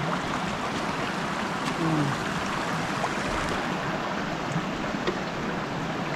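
Steady rush of stream water running.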